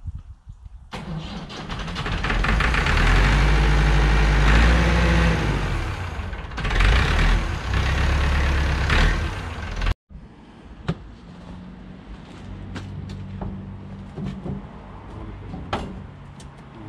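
An old tractor's engine starts and runs loudly for several seconds, its revs rising and falling. After a sudden cut there is a quieter steady hum with scattered clicks and knocks.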